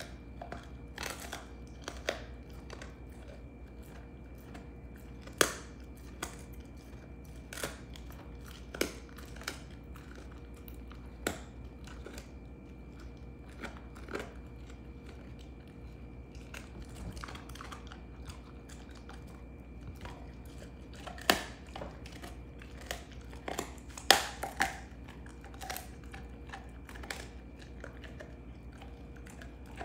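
Belgian Malinois gnawing a beef rib bone: irregular sharp crunches and cracks every second or so, the loudest a few seconds in and twice more about two-thirds of the way through.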